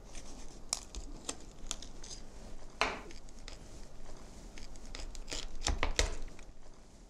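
Chef's knife cutting along the spine of a raw whole chicken, the blade crunching through the rib bones in irregular snaps and crackles. There are a few dull knocks a little before the end.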